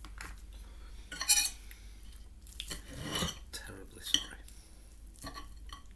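Cutlery clinking against a plate in a handful of short, sharp strokes, the loudest about a second in.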